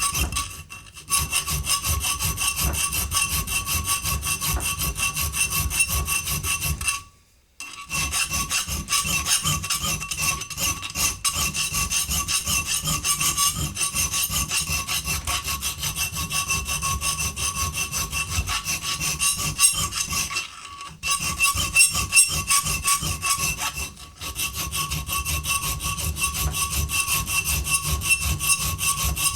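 Hand filing with a half-round file: fast, even back-and-forth rasping strokes widening an opening, broken by a few short pauses.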